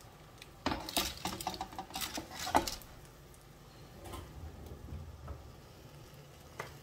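Metal baking tray clattering against the grates of a gas range as it is set down: a run of knocks and clanks, the loudest about two and a half seconds in.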